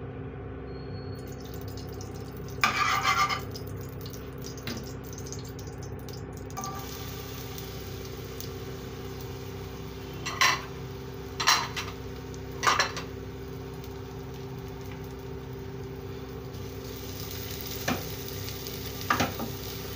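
Raisins being roasted in a steel kadai on a gas stove. Over a steady low hum there is a short clatter about three seconds in, three sharp knocks of a utensil on the pan between ten and thirteen seconds, and a wooden spatula stirring near the end.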